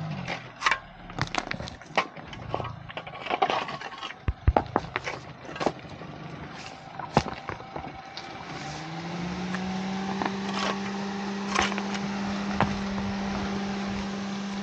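Honda Amaze sedan creeping over loose stones: gravel crunching and scraping under the tyres with many sharp cracks of stones. About eight seconds in, a steady engine hum rises a little and holds.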